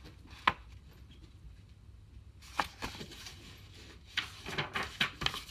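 Quiet handling of a picture book: a few soft clicks and paper rustles as the book is lowered and its pages are turned, with a cluster of them near the end, over a faint low hum.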